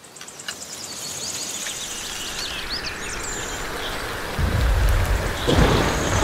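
Steady rain with birds chirping high. A low thunder rumble begins about two-thirds of the way in, and a sharper crash comes near the end.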